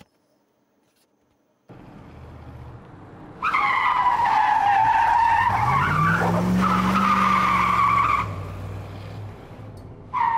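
Car drifting: after near silence, an engine starts running about two seconds in, then the tyres squeal loudly for several seconds while the engine revs rise and fall under them. The squeal drops away to plainer engine running, and a second squeal starts near the end.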